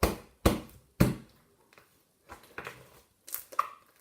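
Hands squishing and kneading slime, giving sharp wet pops and crackles: three in the first second, a few faint ones after, and two more near the end.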